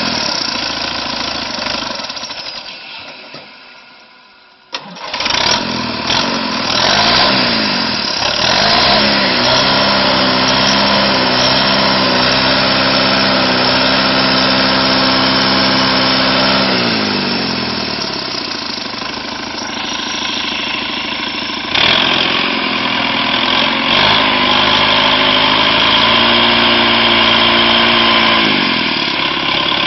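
Nuffield 460 tractor engine working under load as it drives through mud, with revs rising and falling. The sound fades away a few seconds in and comes back abruptly. The engine then climbs in revs and holds high, eases off around eighteen seconds, and picks up again around twenty-two seconds.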